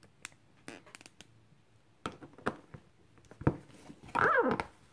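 Small clear plastic figure parts and packaging handled by hand: scattered light clicks and taps, with a sharper click about three and a half seconds in. Near the end comes a brief sound that falls in pitch.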